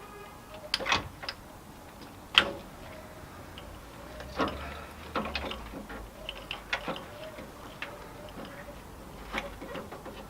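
Irregular sharp clicks and knocks of hand tools and metal parts being worked as the air-con radiator and its fittings are unbolted, with one louder knock about two and a half seconds in.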